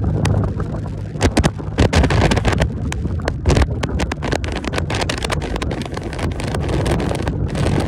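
Motorcycle engine running at a steady cruise, its low hum under heavy wind buffeting on the microphone that comes in frequent irregular gusts.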